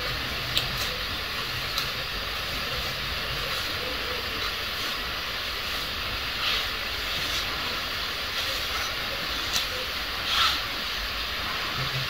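Steady background hiss with a faint low hum, over which a plastic comb and fingers working through long hair make a few faint clicks and brief rustles, the clearest about halfway through and again near the end.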